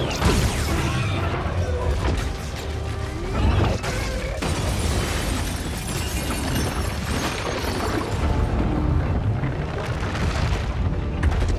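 Action-film battle sound mix: orchestral score under heavy booms, crashes and falling debris from a giant robot fighting a monster. Loud hits land about a quarter second in, at about three and a half seconds, and near the end.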